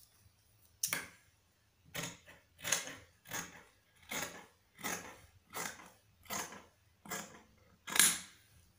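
Large tailor's scissors snipping through dress fabric in steady strokes, about one and a half snips a second, starting about a second in.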